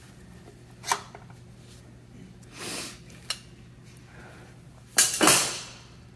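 Metal clinks and scrapes as a connecting-rod big-end cap from a 1952 Jaguar XK120 engine is worked off the crankshaft journal with slip-joint pliers and handled. There is a sharp click about a second in, a short scrape near three seconds, and a louder double clink and scrape about five seconds in.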